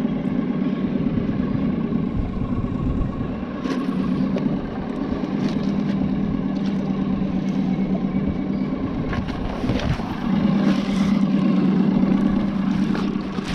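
Boat's outboard motor running steadily underway, a continuous low hum that grows louder about ten seconds in, with a few short knocks.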